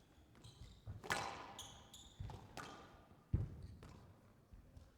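Squash rally: a squash ball struck by rackets and slamming off the court walls in sharp impacts, the loudest just over three seconds in, with short high squeaks of court shoes on the floor.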